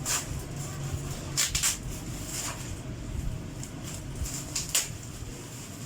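Handling noises from unpacking a parcel: a few short, sharp crackles and knocks, two close together about a second and a half in and another near the end, over a low steady hum.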